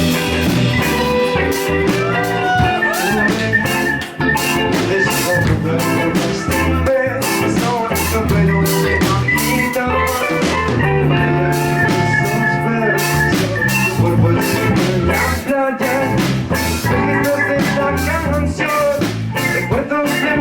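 Live band playing a steady mid-tempo song on electric guitars, bass guitar and drum kit.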